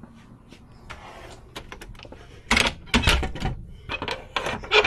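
A door being handled: a run of small clicks and knocks, then a louder clatter of knocks about two and a half seconds in, and a sharp knock near the end.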